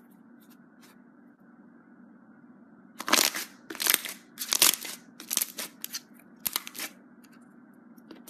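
Slime being squeezed and pressed by hand, giving a run of about eight sharp crackling squelches from about three seconds in to about seven. A faint steady hum lies beneath.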